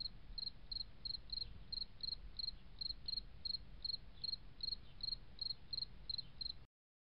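A cricket chirping faintly and steadily, about two and a half chirps a second, over a low rumble. It cuts off suddenly near the end.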